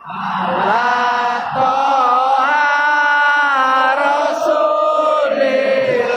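A large stadium crowd of football supporters singing a chant together, holding long notes and moving between them. It fades in quickly at the start, then stays loud and steady.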